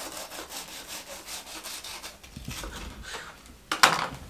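A kitchen knife sawing back and forth through a crisp toasted-bread sandwich on a bamboo cutting board, in quick repeated rasping strokes, with one louder burst near the end.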